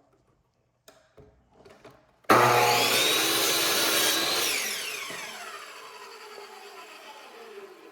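Power miter saw switched on a little over two seconds in, running at full speed through a cut in wood trim for about two seconds, then released, its blade spinning down with a falling whine. A few light handling clicks come before it.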